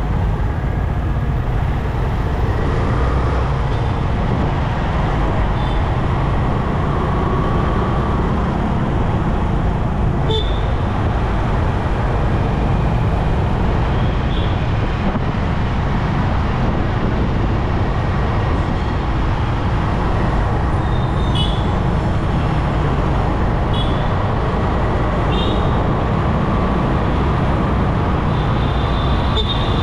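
City road traffic: a steady low rumble of engines and tyres, with short horn toots from other vehicles several times, the longest near the end.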